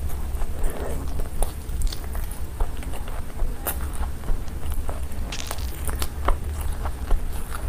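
Close-miked eating sounds: chewing and mouth smacks as chicken biryani and chicken are eaten by hand, heard as many short sharp clicks over a steady low hum.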